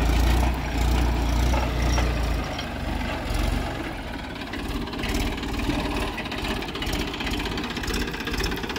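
Tractor diesel engine running steadily under load while pulling a mounted tine plough through dry soil. It has a deep rumble that eases after about two and a half seconds.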